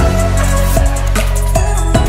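Background music with deep bass notes and a drum beat.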